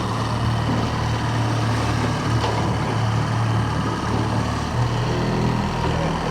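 Fishing boat's motor running steadily at trolling speed, a low, even hum.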